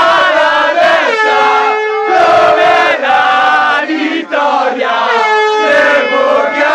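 A small group of celebrating football fans shouting and chanting together at full voice, close to the microphone, with long drawn-out yells.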